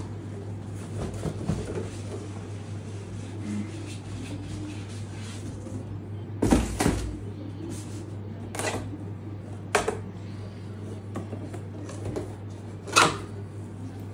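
Cardboard boxes being handled: the flaps of a shipping carton rustling and a boxed helmet being lifted out, with several sharp cardboard knocks and thumps, the loudest about six and a half and thirteen seconds in.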